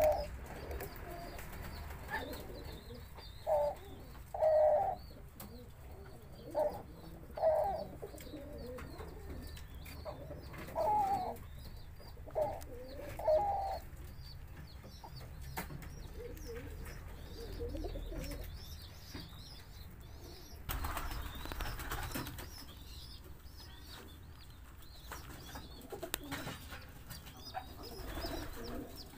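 Collared doves cooing: a run of short, low coos in the first half. Faint high chirping sits in the background. About two-thirds of the way through comes a brief burst of rustling noise.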